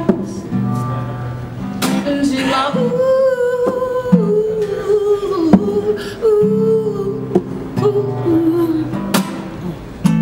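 A man sings a long, drawn-out held note that slides slowly down in pitch over strummed acoustic guitar chords.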